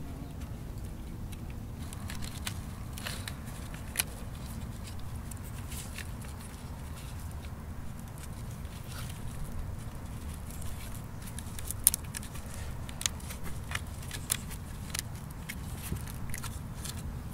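Fibre cordage being wrapped and pulled tight around a bark-covered stick: scattered dry crackles and sharp clicks, more frequent in the second half, the sharpest about twelve seconds in, over a steady low rumble.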